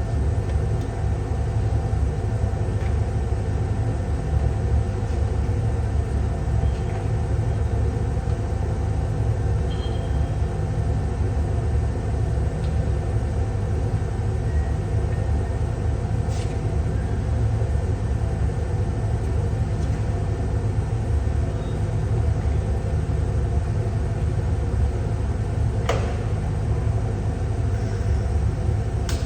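Steady low rumbling hum of welding equipment running, with a few faint clicks.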